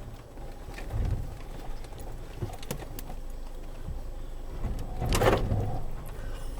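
Land Rover Freelander 2 crawling over rough ground, with a low engine rumble and scattered clicks and knocks from the body and suspension. A louder creak or scrape comes about five seconds in.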